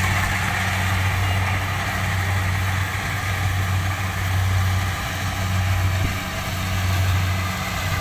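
Rice combine harvester's engine running with a steady low hum.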